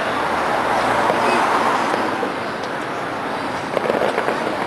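Fireworks display: a broad rush of noise swells and eases, then a rapid run of crackling pops begins near the end.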